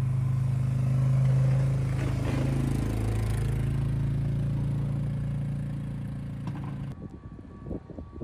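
ATV engine running steadily as the ATV plows snow with a front blade; its note drops slightly about three seconds in. About seven seconds in it cuts off to quieter outdoor noise with wind.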